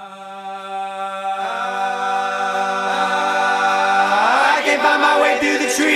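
Background music intro: a single held, choir-like chord fades in and grows steadily louder, with a rising sweep about four seconds in that builds toward the beat.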